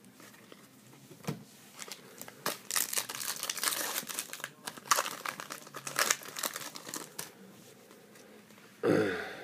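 Foil wrapper of a trading-card pack crinkling and tearing as it is ripped open and the cards are slid out. One short, louder noise comes near the end.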